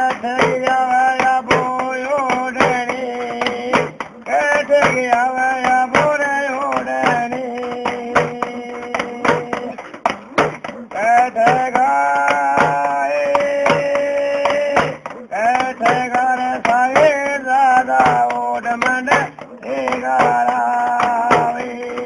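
Music: a man singing a folk song in long held phrases over instrumental accompaniment and a steady drum beat.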